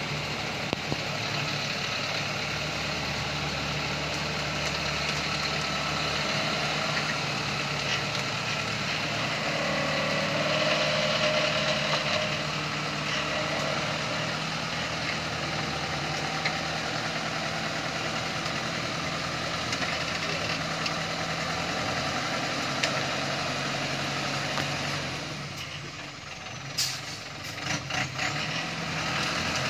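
Chiến Thắng light truck's turbodiesel engine running steadily under load as the truck climbs a steep muddy track. Near the end the engine sound drops away briefly and a few sharp clicks are heard.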